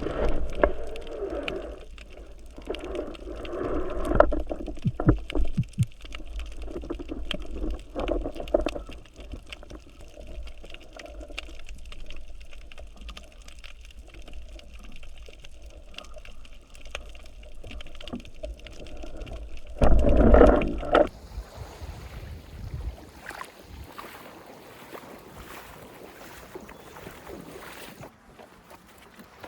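Muffled water sloshing and gurgling with scattered knocks. About twenty seconds in there is a louder surge of water, after which the sound turns quieter and thinner.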